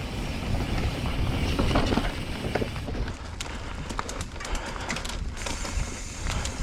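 Mountain bike riding on a dirt trail: a steady low rumble of the bike over the ground and wind buffeting the microphone, with a run of sharp clicks and rattles about halfway through.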